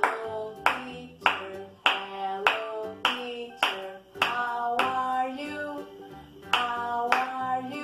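A children's song with singing, and hand claps on the beat, a little under two claps a second.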